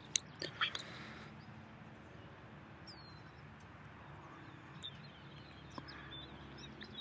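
Faint outdoor ambience with small birds chirping now and then, and a few sharp clicks in the first second.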